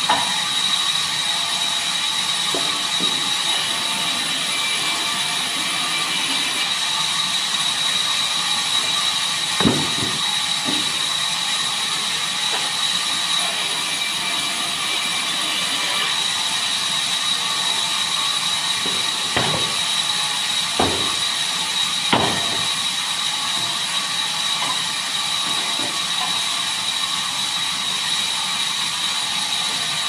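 Large vertical band saw running and cutting wooden planks: a steady high-pitched whine over hiss. A few sharp knocks break through, one about ten seconds in and three close together around twenty seconds in.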